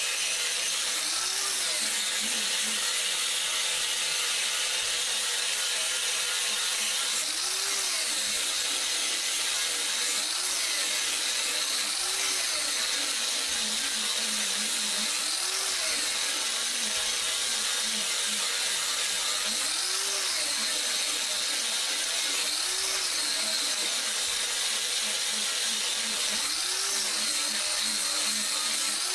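Grinder running a 36-grit flap wheel against a forged steel blade, grinding off the forge scale. A steady, high grinding hiss, with the motor's pitch swelling and sinking every two to three seconds.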